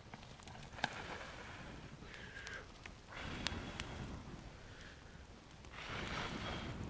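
A person blowing hard on a small twig-and-brush campfire in several long breaths to feed air to the flames, with a couple of sharp snaps from the burning wood.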